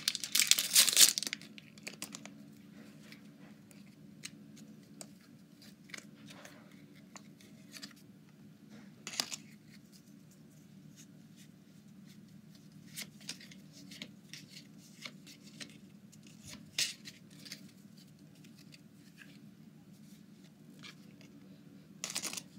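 Crinkling and tearing of a wrapper, loudest in the first second or two, then scattered faint rustles and clicks, with another short crinkle near the end. A faint steady hum runs underneath.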